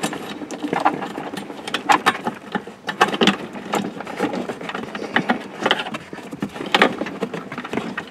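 Plastic wiring-harness plugs and loose wires clicking and rattling irregularly as a hand pushes a connector into the harness behind the dash. A few louder clacks stand out among the steady fumbling.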